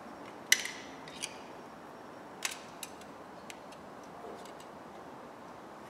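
Light sharp clicks and taps of small metal parts and tools being handled, five or so scattered irregularly, the sharpest about half a second in, over a quiet steady hiss.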